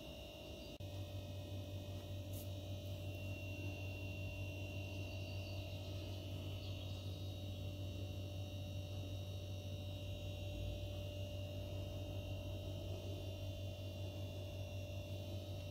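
Steady low electrical hum that switches on about a second in and holds level.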